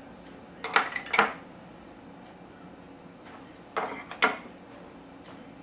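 A metal spoon clinking against a glass baking dish and glass bowls while mayonnaise is spread. There are two quick clusters of clinks, about a second in and again about four seconds in.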